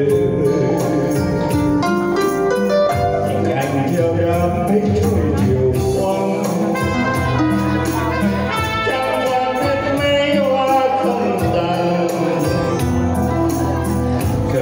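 Live band music: a man singing a Vietnamese song into a microphone over acoustic guitar and band accompaniment, with a tambourine shaken in time.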